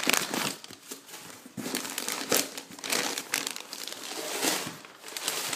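Crumpled newspaper packing being handled and pulled out of a cardboard box, with irregular rustling and crinkling.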